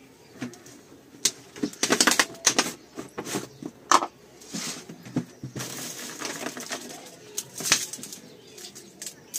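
Irregular rustling and light clicks from hands handling a plastic jar and sorting small fish in a steel plate, with a few sharper clatters around two, four and nearly eight seconds in.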